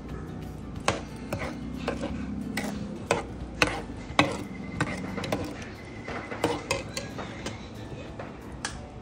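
Stainless steel spoon stirring a milky liquid in a non-stick pan, clinking and scraping against the pan in irregular knocks, the loudest near the middle.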